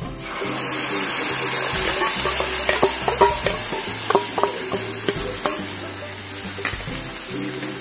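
Spiced curd mixture poured into hot mustard oil and fried onions in a frying pan, sizzling as soon as it hits the oil, with scattered clicks and scrapes of a wooden spatula against the steel bowl. The sizzle eases a little toward the end.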